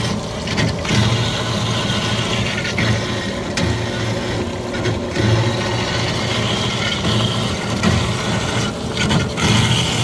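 Cosen AH-250H horizontal metal-cutting bandsaw running in automatic mode, its blade cutting steadily through clamped stock over the low hum of the drive motor.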